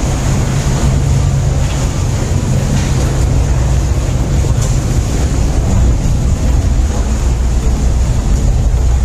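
Boat engine running steadily under way, with wind buffeting the microphone.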